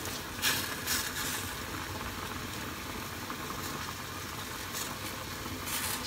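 Shiro-dashi broth simmering in a clay pot over a gas burner, a steady bubbling hiss. A few short, soft rustles come about half a second and a second in, and again near the end, as pieces of Chinese cabbage and spring onion are laid into the pot.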